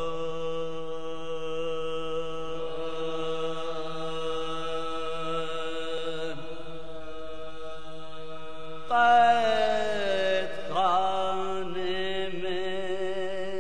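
Marsiya soz chanting: a steady held drone note, then about nine seconds in a louder solo male voice enters, sliding and wavering through an ornamented melodic line.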